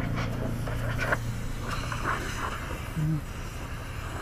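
A motor running with a steady low hum and an even pulse, with a few faint clicks and a brief low tone about three seconds in.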